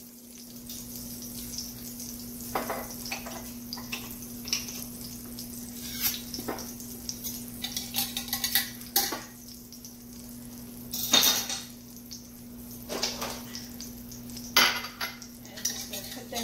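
Scattered clinks and clatter of a glass mason jar being opened and handled, with denser clattering about 11 and 14.5 seconds in. Oil sizzles faintly in an enamelled cast-iron Dutch oven, over a steady low hum.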